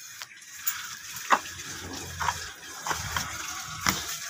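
Compressed air hissing at a GC Mag Magnum Gen2 PCP air rifle's air cylinder, with a few sharp metallic clicks as the rifle is handled.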